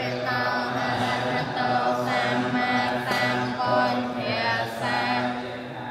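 Several voices chanting together in a sung cadence over a steady held low pitch, with short pauses between phrases.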